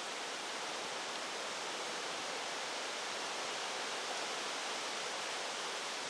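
Steady rushing hiss of strong wind through the trees and leaves, with no breaks or separate sounds.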